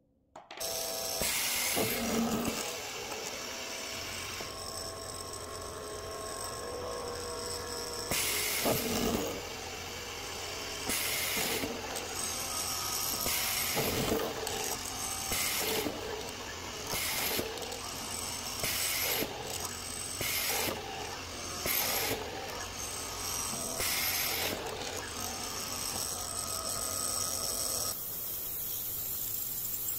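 Industrial woodworking machine running, its cutter biting into an oak board again and again as it shapes the board's end, throwing out chips. Each bite is a short, louder, harsher burst over the steady machine noise.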